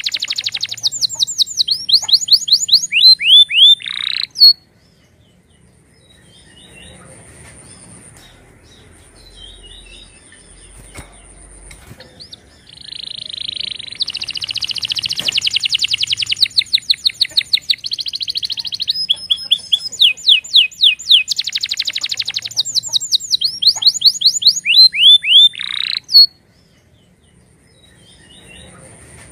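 Domestic canary singing: loud phrases of fast trills and repeated falling whistled notes, in two long bouts separated by a pause of about eight seconds.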